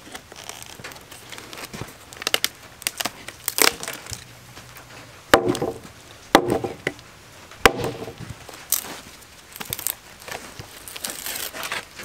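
A hatchet chopping into a resinous pine slab: about half a dozen sharp, irregularly spaced strikes as it splits off strips of sapwood, with the wood cracking and splintering between blows.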